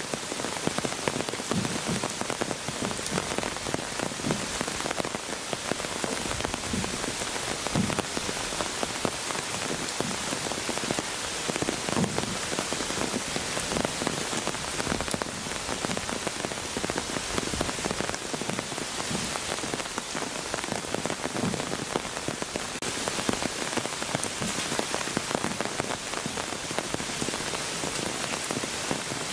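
Steady rain falling, with many separate drops heard striking close by.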